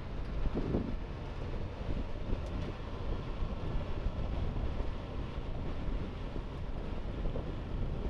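Ultra Heavy-Lift Amphibious Connector (UHAC) prototype running its track of flotation pads across the beach: a steady, low machinery noise, with wind buffeting the microphone.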